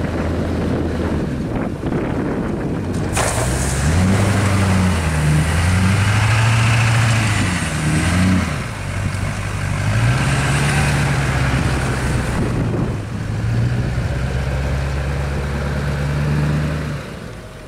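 Chevrolet Silverado dually's 6.6-litre Duramax LB7 turbodiesel V8 working while the truck plows snow, its engine speed rising and falling several times. A hiss cuts in sharply about three seconds in and stops about twelve seconds in. The engine sound drops away near the end.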